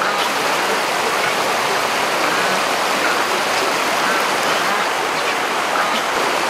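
Rushing water of a fast, muddy stream pouring over rocky rapids, a steady even rush.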